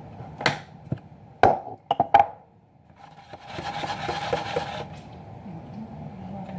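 Kitchen handling noise: several sharp knocks and clatters of things set down and moved about on a counter, the loudest pair about two seconds in, then a rushing hiss for about a second.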